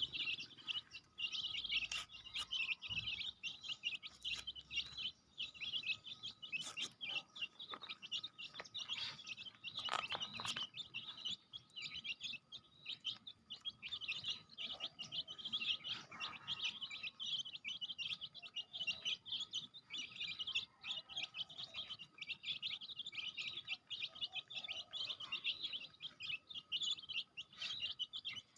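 A group of chicks peeping continuously, a dense chatter of short high chirps, with a few scattered knocks in the first third.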